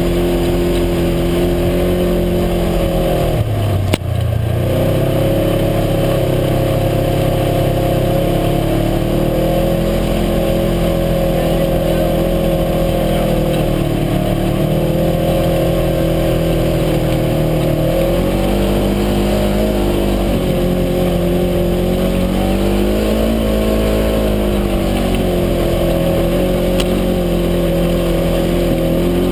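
UTV engine running under way, its pitch rising and falling with the throttle. About four seconds in the revs drop sharply with a single knock, then climb again.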